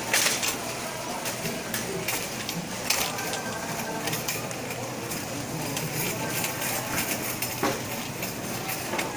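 Shopping cart rattling and clattering as it is pushed along, with many irregular sharp clicks over a steady rolling noise.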